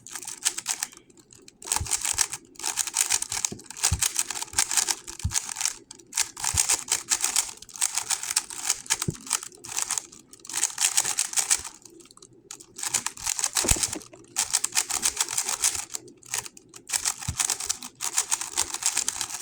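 GAN 11 M Pro magnetic speedcube being turned fast in a solve: long runs of rapid plastic clicking, broken every few seconds by short pauses.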